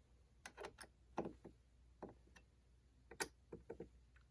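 Faint, irregular light clicks and taps, about a dozen in a few seconds, from small hand tools and screw hardware being handled on an RC truck's chassis.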